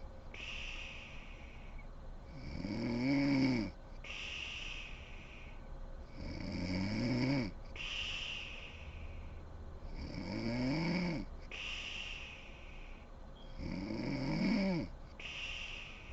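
A sleeping woman snoring steadily, four snores about four seconds apart. Each snore rises and then falls in pitch, with a breath between snores.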